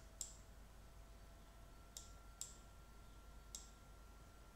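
Computer mouse clicking: four short, sharp clicks spread over a few seconds against near silence.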